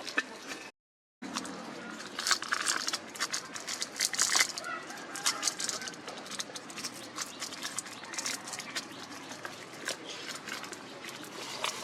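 Chickens clucking amid many short clicks and scratches, with a brief break in the sound about a second in.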